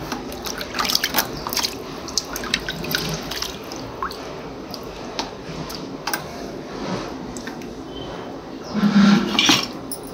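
Water dripping and splashing into a plastic bucket as a small planted cup is watered by hand over it, in a run of short irregular splashes and drips, with a louder knock near the end.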